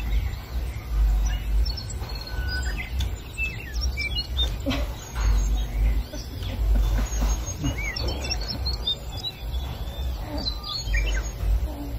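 Birds chirping, with many short, scattered calls, over a low rumble that swells and fades.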